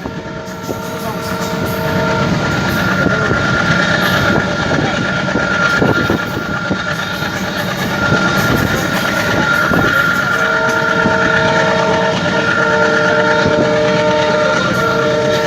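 ALCO WDG3A diesel locomotive chugging under load, with a steady high whine. Its twin horns sound a chord briefly at the start, then again in several blasts from about ten seconds in.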